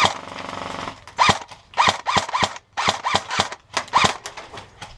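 Airsoft guns firing: a short rapid burst lasting about a second, then a string of separate sharp shots or short bursts.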